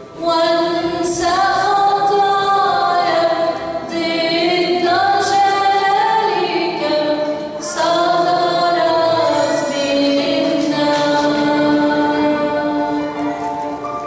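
A church choir of mostly female voices singing a liturgical hymn in long, held notes. The singing falls into phrases, with brief breaks about four and seven and a half seconds in.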